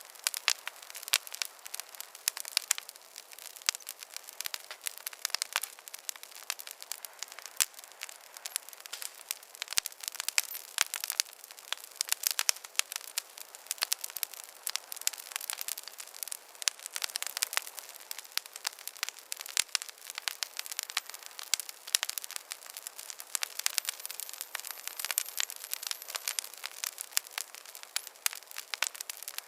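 Campfire burning and crackling: a dense, irregular stream of sharp pops and snaps over a soft steady hiss.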